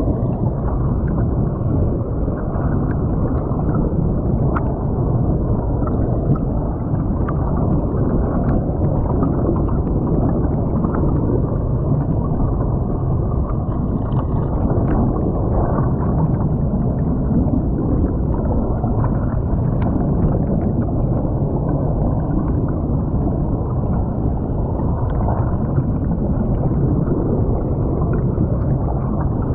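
Creek water flowing and gurgling over a submerged camera's microphone: a steady, muffled rush with faint clicks here and there.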